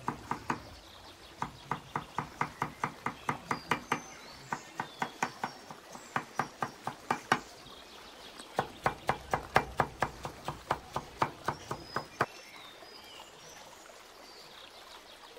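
Knife chopping on a cutting board: three runs of quick, even strokes, about four a second, with short pauses between them, stopping about three seconds before the end.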